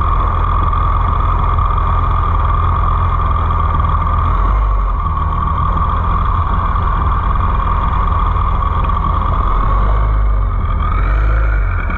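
Jet ski engine running steadily: a constant low rumble with a steady whine above it.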